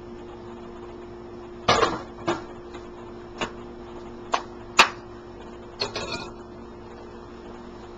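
Cookware clattering: a lid set on a frying pan and a spatula and plate knocked about, heard as a handful of separate sharp knocks, the loudest a little past halfway, over a steady low hum.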